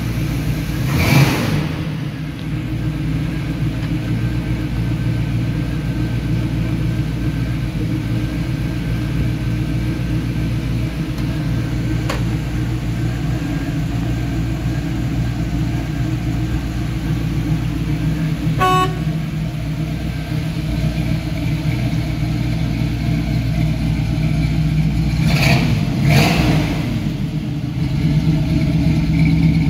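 1968 Chevrolet Camaro SS's V8 engine idling steadily, blipped briefly about a second in and twice more near the end.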